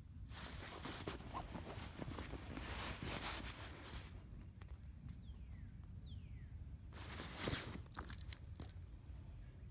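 Rustling of nylon stuff sacks and fabric as camping gear is handled. The rustling runs for the first few seconds, then drops to a pause with two faint falling chirps, and picks up again about seven seconds in.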